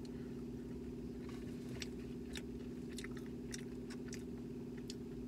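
A person chewing a mouthful of fried food (battered cod and French fries), with soft, wet chewing clicks about every half second starting about a second in, over a steady low hum.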